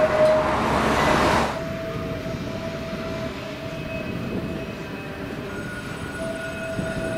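Blackpool heritage tram, built as a steam-locomotive replica, running along the track: a steady electric whine over the rumble of the running gear. The loud rumbling drops sharply about a second and a half in, leaving quieter running with the whine coming and going.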